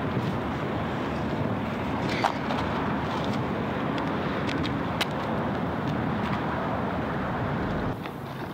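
Metal shopping cart rolling across asphalt: a steady rumble with a couple of sharp clicks, about two and five seconds in.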